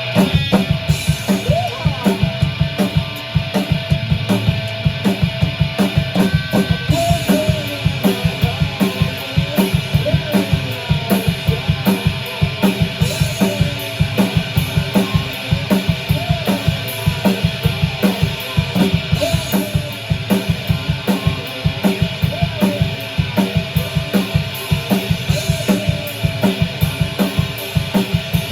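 A rock band playing live. A full drum kit comes in right at the start with a fast, steady beat of bass drum and snare, about four to five hits a second, over sustained electric guitar.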